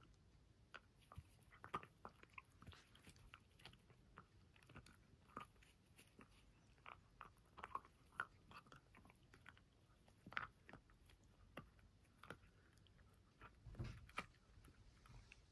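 A Jack Russell terrier gnawing and chewing on something held between its paws: faint, irregular crunches and clicks of its teeth, about one or two a second, the loudest near the end.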